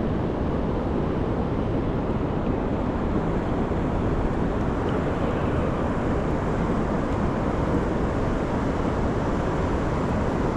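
Steady wind rumbling on the microphone, an even noise without a break.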